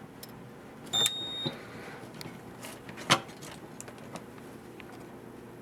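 A fire alarm control panel's piezo sounder gives one high, steady beep of about half a second as the panel powers back up on a cold start. About three seconds in comes a single sharp click, the loudest sound.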